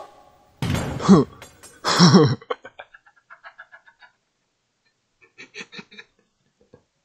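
A person laughing: a loud, high-pitched burst of laughter, then a run of short, quick chuckles that trail off, and after a pause another brief run of chuckles.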